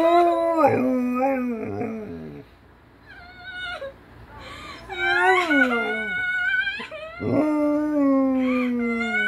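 German Shepherd whining in drawn-out cries that slide in pitch, reacting to recorded human crying. There are several in a row, with a long cry falling in pitch near the end.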